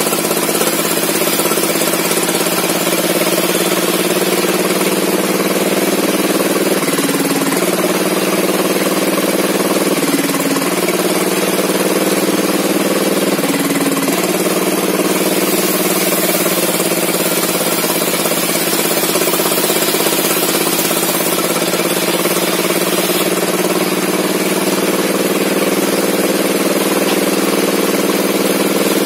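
Small engine of a log-sawing rig running steadily, its note dipping briefly three times as it bogs down under the load of the cut.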